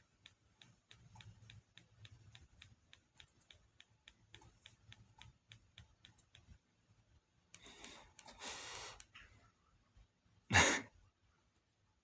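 Quick, even clicking of a flip phone's keypad buttons being pressed over and over, about four presses a second, stopping about six and a half seconds in. Then a breathy sigh, and a short, louder burst of noise near the end.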